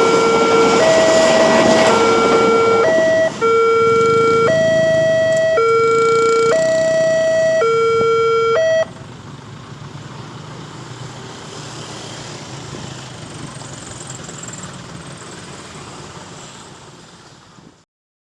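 Railway level-crossing alarm sounding its two-tone warning, a lower and a higher tone alternating about once a second. It cuts off abruptly about nine seconds in, leaving only faint background noise.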